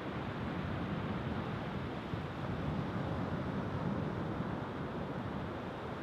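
Rough sea surf breaking and washing up a sandy beach, a steady rushing noise without let-up, with wind on the microphone.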